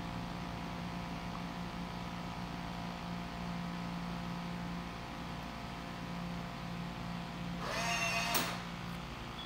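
Steady low mechanical hum with a few constant tones, from a running appliance in the room, with a short noisy rustle about eight seconds in.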